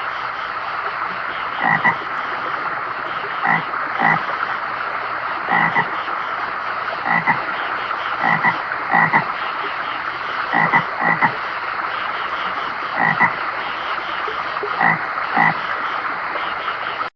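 Toad croaking: short calls every one and a half to two seconds, often in quick pairs, over a steady hiss-like background; the recording cuts off suddenly at the end.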